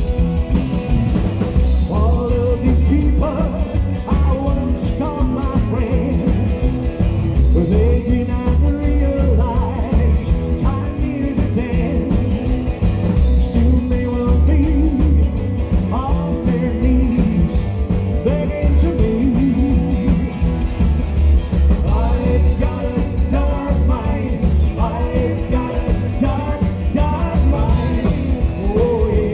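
Live rockabilly band playing loudly, with an upright double bass, electric guitar and drum kit, and a man singing the melody over them.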